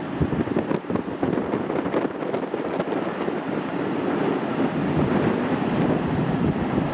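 Strong wind buffeting the microphone in uneven gusts, over the faint steady rumble of a freight train crossing a distant bridge.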